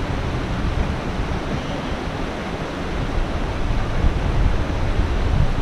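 Steady rushing outdoor noise with a low rumble, like wind on the microphone or running water.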